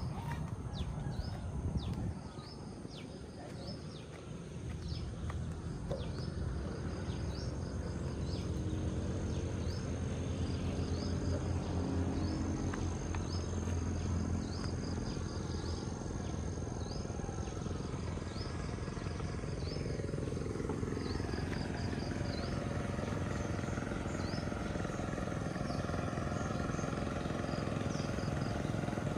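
Outdoor rural ambience: short, high, falling animal chirps repeating about once a second over a low rumble.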